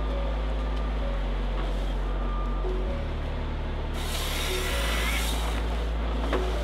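Background music: low sustained bass notes that change pitch every second or two, with a brief burst of hiss about four seconds in.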